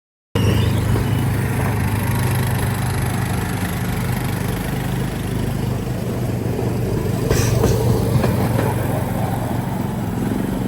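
A vehicle's engine running steadily with a low, even hum, and a short knock about seven seconds in.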